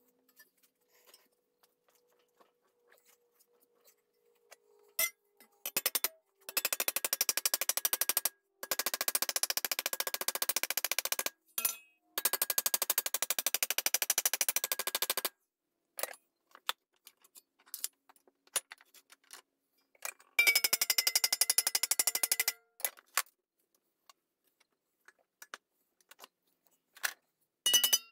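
Hammer beating a sheet-steel repair patch clamped in a bench vise, folding its lower edge over into a flange. Four runs of rapid, ringing metal-on-metal blows, each a couple of seconds long, with scattered single taps between them.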